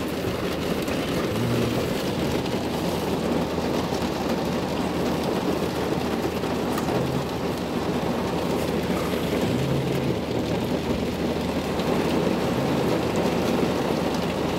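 Steady rushing noise inside a car's cabin.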